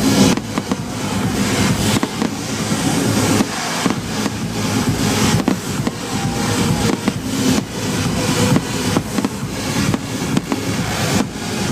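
Fireworks display: a dense, continuous run of bangs and crackles, with loudness that rises and falls.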